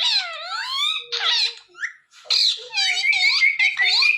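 Indian ringneck parakeet chattering in high, squeaky, fast-gliding whistles and warbles, with a short pause about halfway and a run of rapid repeated notes after it.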